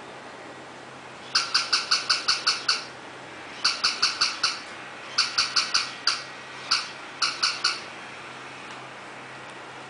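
Battery-powered plush toy dog on a wired remote giving high, electronic yaps. They come in quick runs of four to eight, with a couple of single yaps between.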